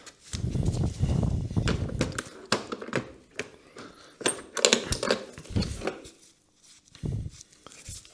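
Scattered clicks and knocks of a hand tool and hex bit on metal while a very tight hex drain plug is worked loose. A low rustling rumble in the first couple of seconds is handling noise or heavy breathing from the strain.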